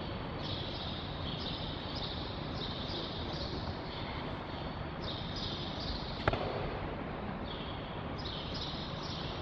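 Steady hiss of hall room tone, with high stepped chirps repeating about once a second. About six seconds in comes one sharp slap, an aikido partner's breakfall onto the mat at the end of a shiho-nage throw.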